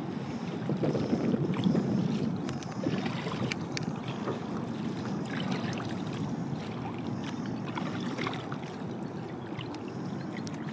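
Double-bladed kayak paddle dipping and splashing in shallow lake water as a sit-on-top kayak is paddled, with a few light splashes over a steady low rushing noise.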